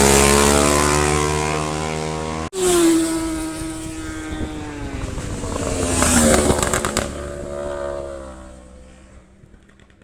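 Racing motorcycles passing at speed, the engine note dropping in pitch as each goes by. The sound cuts abruptly about two and a half seconds in to another passing bike, which fades away near the end.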